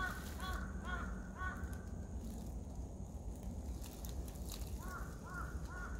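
A crow cawing: four short calls in the first second and a half, then three more near the end.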